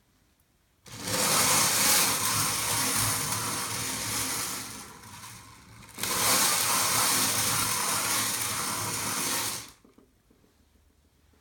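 Twelve-sided wooden lazy Susan turning on its swivel bearing. The noise starts abruptly about a second in, eases off around the middle, picks up again and stops suddenly near the end.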